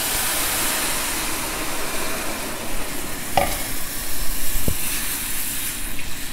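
Water poured into a pan of hot ghee and roasted semolina, sizzling and spattering as it hits the fat, with a spatula stirring through it. A short knock a little past halfway.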